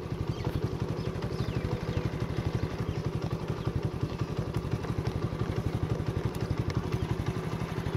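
A vehicle engine running steadily with an even, fast low pulsing and no change in pace.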